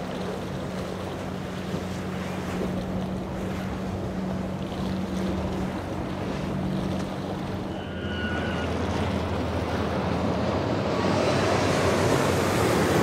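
Boat engines running with a steady drone that shifts in pitch about eight seconds in, over the rush of waves and wind on the microphone, which grow louder toward the end.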